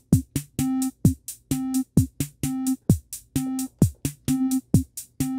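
Teenage Engineering TX-6 field mixer's internal synth engines playing a sequenced electronic beat. A kick drum falls in pitch about once a second under fast hi-hat ticks, with a snare in the pattern, while a triangle-wave oscillator repeats short notes on middle C (262 Hz).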